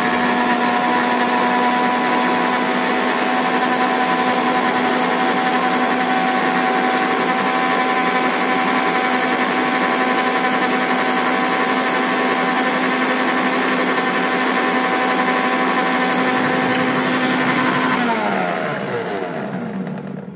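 Electric mixer-grinder (mixie) blending curd, ice and tender coconut into lassi, its motor running at a steady high speed. Near the end it is switched off and spins down with a falling whine.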